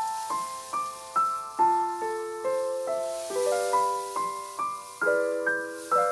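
Background music: a gentle piano melody, single notes and soft chords about two a second, each ringing out and fading.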